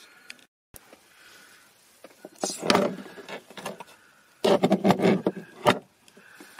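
Small hand tools and a loose screw being handled on a plastic dashboard shelf: two bursts of clattering clicks and knocks, about two and a half seconds in and again about four and a half seconds in.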